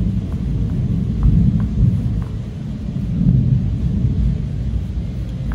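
Long wooden rolling pin wrapped in phyllo dough, rolled back and forth under the palms across a stone countertop, stretching the dough thin: a loud, low, uneven rumble, with a few faint light ticks in the first couple of seconds.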